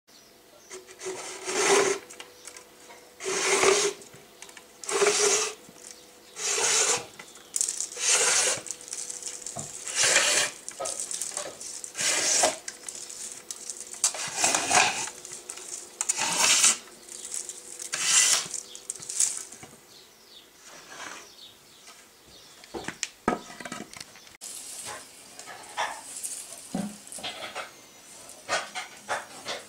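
PET plastic bottle being cut into a strip on a homemade bottle cutter: the plastic rasps through the blade in repeated pulls about every second and a half. In the later part the pulls stop and only quieter scattered knocks and clicks remain.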